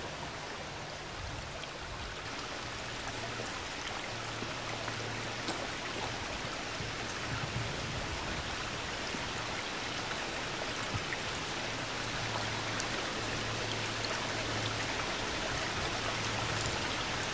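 Shallow river water running over a stony bed, a steady rushing that grows slightly louder toward the end.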